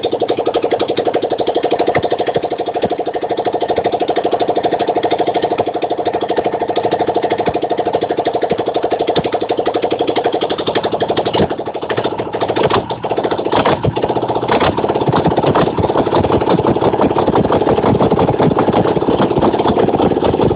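Freshly rebuilt Ural motorcycle flat-twin engine running, with a new crankshaft, camshaft, timing gears, main bearings and pistons in rebored cylinders. The firing pulse is even, falters briefly about twelve seconds in, then runs faster.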